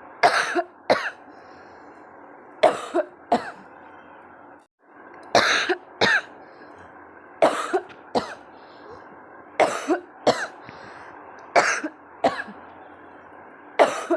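A woman coughing on purpose in quick double coughs, one pair about every two seconds. These are forced coughs, and they have left her throat and stomach sore.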